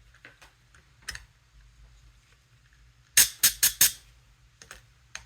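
Working noises from a Scubapro Air 2 regulator being adjusted with an Allen wrench: light clicks, then four sharp, loud bursts in quick succession about three seconds in.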